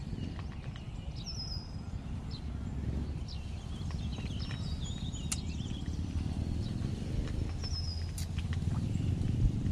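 Outdoor ambience: wind rumbling on the microphone, with scattered short bird chirps.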